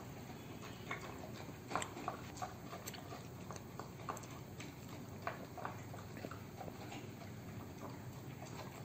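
Dog eating from a small bowl: irregular soft crunching and clicks as it chews and noses the food.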